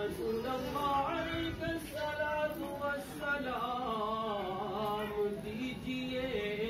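Male voices singing a slow devotional chant in a single melodic line, with long held and gliding notes.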